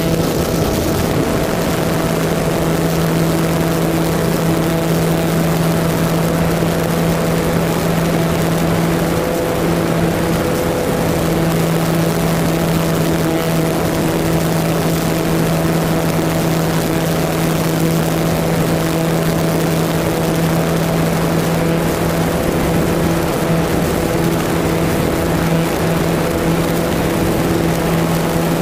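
Motor and propeller of an RC model glider running steadily at flying power, heard from its onboard camera as a steady pitched drone over a rush of wind noise. The drone firms up about a second in and holds steady after that.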